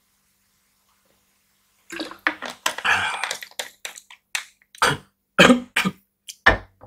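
A man clearing his throat and coughing after a drink of water: a longer rough burst about two seconds in, then several short sharp coughs.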